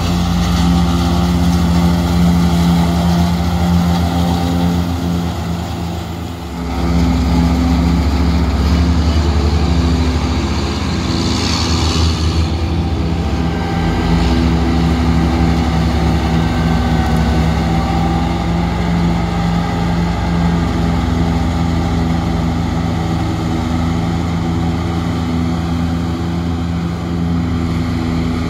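New Holland 1900 self-propelled forage harvester working in the field, its engine running steadily under load as it chops hay. There is a brief dip about six seconds in and a short hiss about twelve seconds in.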